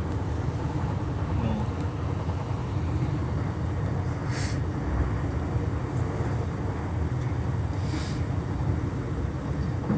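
Cabin noise inside a Class 395 high-speed electric train running along the line: a steady low rumble of wheels on rails, with two brief hisses about four and eight seconds in.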